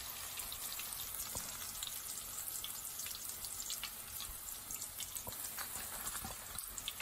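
Chicken mince pakoras deep-frying in hot oil in a wok: a steady hiss of bubbling oil with scattered crackles and pops.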